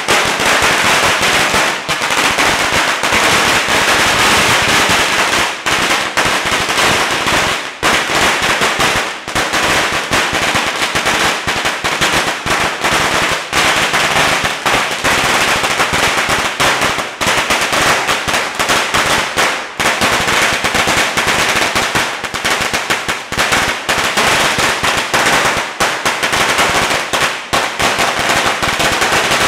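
A 100,000-shot belt of Chinese firecrackers going off in a loud, unbroken rapid crackle of bangs.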